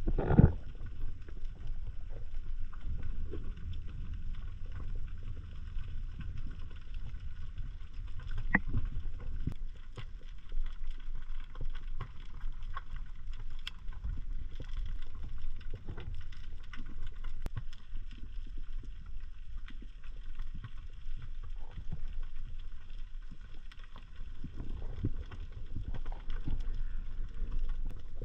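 Underwater sound picked up by a camera in a waterproof housing during a dive: a steady low rumble of moving water with scattered faint clicks and crackles, and one louder knock right at the start.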